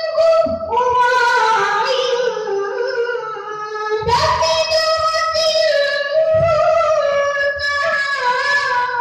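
A young boy's voice reciting the Quran in melodic tilawah style, drawing out long, ornamented notes. A new phrase begins about four seconds in.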